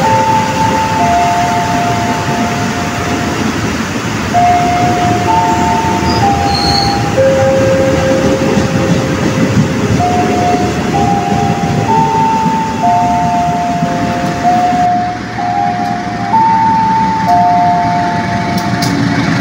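KRL Commuterline electric train running along the platform and slowing to a stop, a dense steady rumble of wheels and motors. Over it, a slow tune of held notes steps up and down and carries on after the train has stopped.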